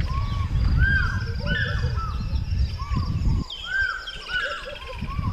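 Several birds calling over and over in short, arched notes. Wind rumbles on the microphone and drops away about three and a half seconds in.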